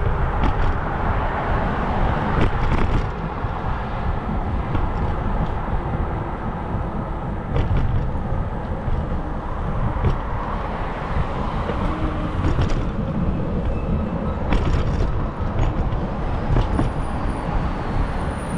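Wind noise on the microphone of a moving bicycle, over the hum of road traffic on the street alongside, with scattered sharp clicks as the bike rolls over bumps in the pavement.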